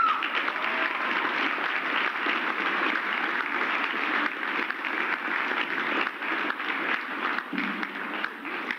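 Audience applauding, a dense steady clatter of many hands that eases off slightly near the end.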